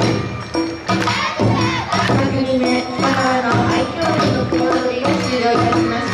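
Awa Odori festival music: an ensemble of taiko drums beating a steady rhythm about twice a second with a clanging kane bell, under a melody on flute and shamisen. Voices call out over the music.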